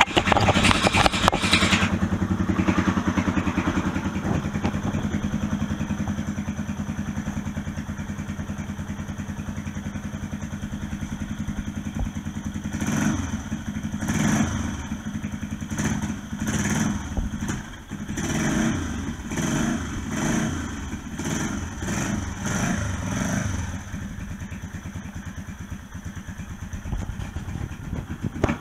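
Freshly rebuilt Honda XL250S single-cylinder four-stroke engine running: higher revs in the first couple of seconds, then settling to a steady idle. From about twelve seconds in, the throttle is blipped repeatedly, the revs rising and falling about once a second, before it settles back to idle. The exhaust is only loosely fitted, so there may be a little leakage around it.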